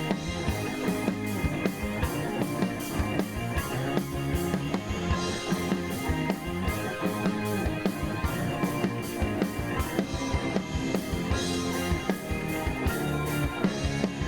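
Instrumental rock music with a steady drum beat and guitar.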